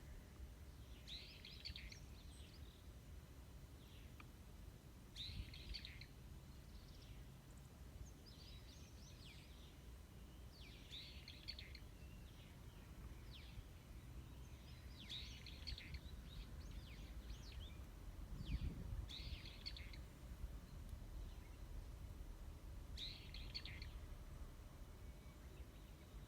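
Faint bird song: short chirping phrases repeated every two to four seconds, over a steady low rumble.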